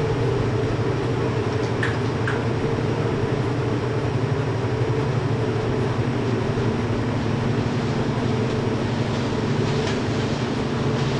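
Microwave oven running: a steady hum over fan noise, with a few faint ticks about two seconds in and again near the end.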